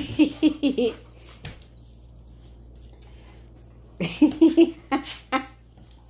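Golden retriever puppy whining and yipping in two short bursts, in the first second and again about four seconds in, worked up while playing with a ceiling fan brush.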